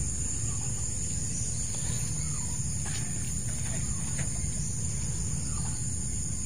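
Outdoor rural ambience: a steady, high-pitched insect drone, over a low background rumble, with a few faint short calls scattered through it.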